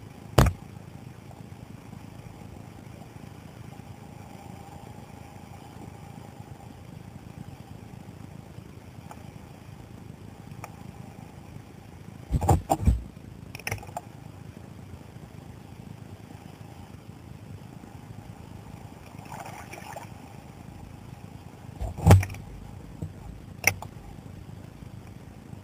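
Muffled underwater noise picked up through a GoPro's waterproof housing: a steady low rumble, broken by a few sharp knocks, the loudest about halfway through and again near the end.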